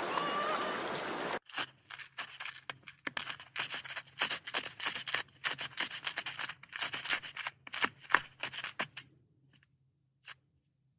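Running water with a few short chirps, cut off about a second and a half in. Then a small rodent gnawing: a rapid, irregular run of sharp scratchy clicks for about seven seconds, with one last click near the end.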